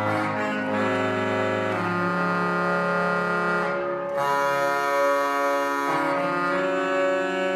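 Historic Spanish pipe organ playing an improvisation on a divided stop (medio registro de bajo), with the solo voice in the bass half of the keyboard. Held chords change every second or two, and a low note drops out about two seconds in.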